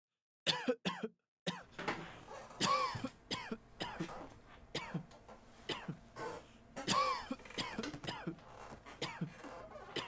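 People coughing and clearing their throats over and over, one short cough after another, starting about half a second in: simulated exam-hall noise.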